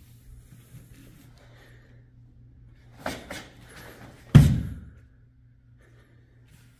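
Karate kata movements on a wooden floor: a few quick sharp snaps of the gi about three seconds in, then a single heavy thud as a bare foot plants into a stance.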